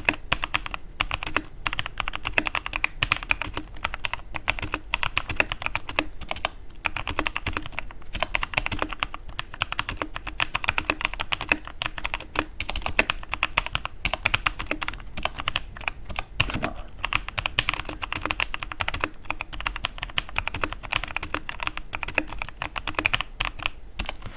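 Mechanical keyboard being typed on steadily: a continuous stream of rapid key clicks as the switches are sound-tested.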